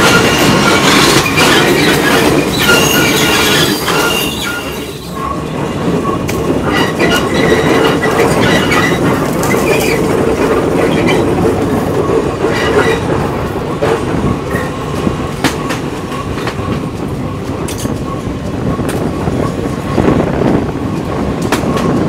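Jungle-line train running on metre-gauge track: a steady rumble of wheels on rail with sharp clicks over the rail joints, and the wheels squealing in high whining tones now and then, most in the first half.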